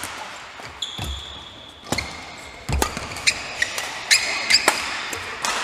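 Badminton singles rally: sharp cracks of rackets striking the shuttlecock, shoes squeaking on the court, and thuds of footfalls.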